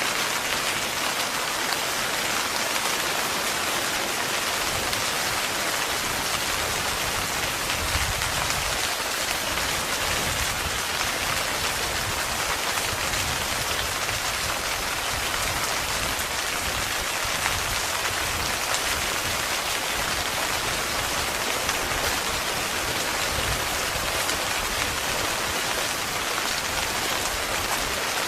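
Heavy rain falling steadily on a tent, a dense even hiss of drops on fabric. A low rumble comes and goes underneath from about eight seconds in.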